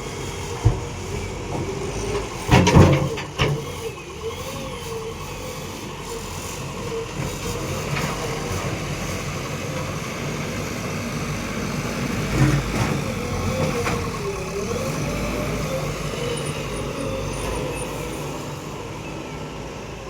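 JCB 3DX backhoe loader's diesel engine running at work, its pitch wavering up and down as the hydraulics are worked. A cluster of loud knocks comes about two and a half seconds in, and a smaller knock near the middle.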